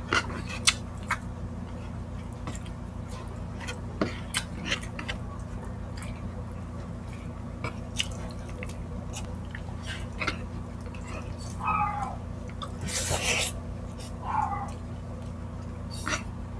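Close-miked eating sounds: wet chewing, lip smacks and mouth clicks from people eating higadillo, a stew of pork and liver, with rice by hand, over a steady low electrical hum. A couple of short squeaky sounds come past the middle, and a half-second louder noise a little after.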